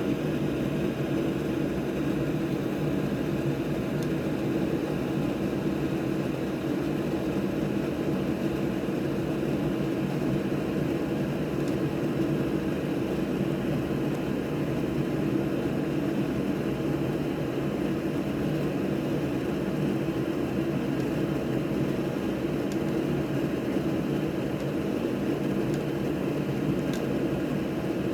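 Steady whir of a running fan, even and unchanging.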